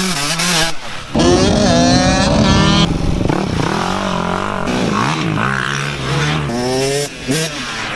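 Dirt bike engines revving hard, pitch climbing and falling as the bikes accelerate and back off, with abrupt jumps in sound at the cuts about one, three and seven seconds in.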